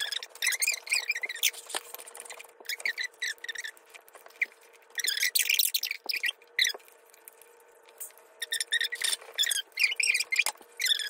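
Two people's voices raised in pitch, as in sped-up footage, heard as squeaky, chipmunk-like chatter and laughter in short choppy bursts, with a pause around the middle.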